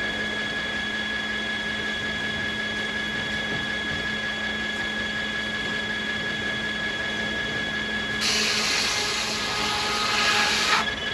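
Sawmill circular saw blades running at speed with a steady whine. About eight seconds in, a blade bites into American beech for about two and a half seconds, a loud high hiss of cutting that stops abruptly.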